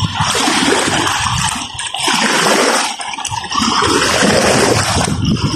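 Small waves washing up a sandy shore and draining back: a rushing wash that eases about two seconds in and swells again about a second later.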